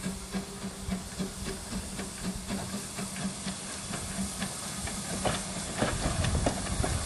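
Queensland Railways PB15 class steam locomotive hissing steam, with a steady low tone pulsing about three times a second. From about five seconds in it grows louder and rougher, with sharp knocks and clicks.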